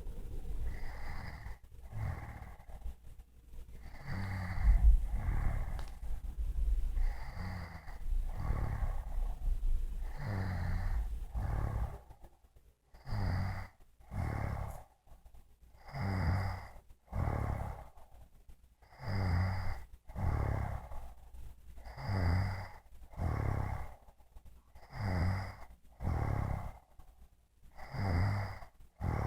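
A woman snoring in her sleep, a steady rhythm of paired snores, one pair about every three seconds. A low rumble runs underneath for the first dozen seconds or so.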